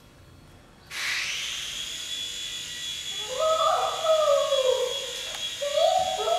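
A small electric motor, likely a toy helicopter's rotor, spins up with a quick rising whine about a second in and keeps running at a steady high pitch. From about three seconds in, a voice rises and falls over it.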